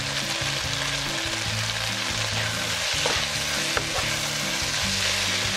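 Pork shreds, pressed tofu and green garlic sizzling steadily in oil in a nonstick wok while a wooden spatula stir-fries them, with two light spatula clicks about three and four seconds in.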